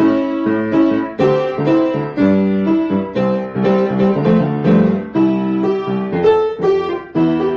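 Piano playing a funk tune: short, sharply struck chords in a syncopated rhythm over low bass notes.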